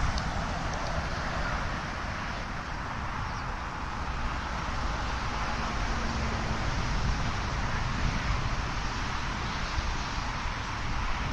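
Outdoor wind blowing steadily, with gusts rumbling on the microphone.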